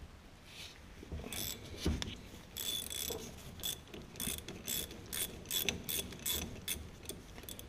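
Hand socket ratchet clicking in short repeated bursts, about two or three a second, as the 12-point bolt joining the steering shaft to the steering gear is turned out.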